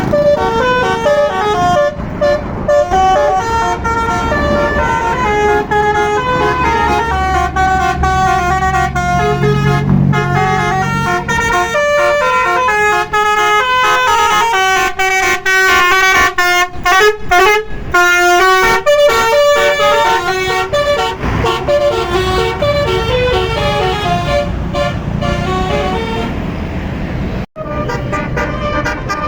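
Tour bus's basuri telolet horn, with roof-mounted trumpets, playing a fast melody of stepped notes over and over. It breaks off briefly near the end, then carries on.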